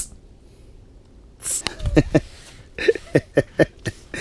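A man's voice making quick, repeated short vocal sounds, about five a second at their fastest, with a breathy hiss about a second and a half in.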